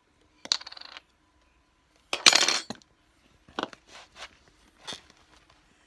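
Clicks and clinks of a plastic container and spoon being handled over a small bowl while slime ingredients are put in. One louder, noisy burst lasts under a second about two seconds in, and scattered single clicks follow.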